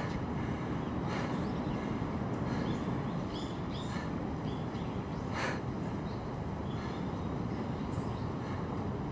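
Outdoor garden ambience: a steady low rumble with scattered short bird chirps, and a person's sharp breath about a second in and again past the halfway point.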